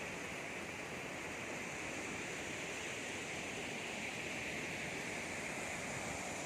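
Hudru Falls, a waterfall dropping about 322 feet, pouring without pause: a continuous, even rush of falling water.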